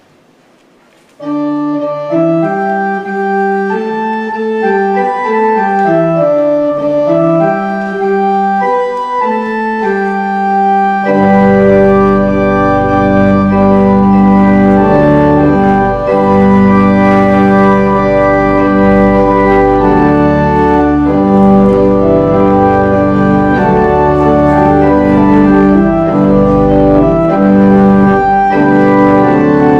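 Two-manual electronic church organ playing sustained chords, starting about a second in. About ten seconds in the pedal bass enters and the sound becomes fuller and louder.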